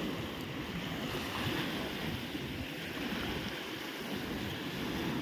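Small lake waves breaking and washing onto a shore of dark sand and pebbles, a steady rushing, with wind buffeting the microphone.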